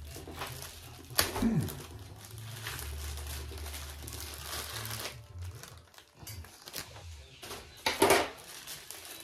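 A packing bag being handled and worked open, crinkling, with two louder rustles about a second in and about eight seconds in.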